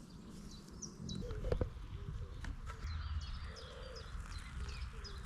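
Small songbirds chirping and whistling in many short high calls, over a low rumble of wind. There is one short knock about a second and a half in.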